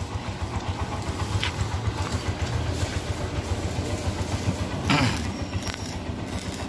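Steady low machine drone with a fast, even pulse, and a short burst of a voice about five seconds in.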